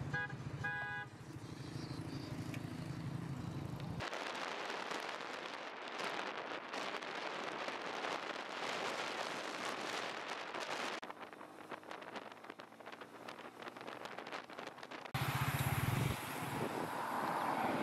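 A car driving along the road with engine rumble and wind and road noise on the microphone. A few short horn toots sound in the first second.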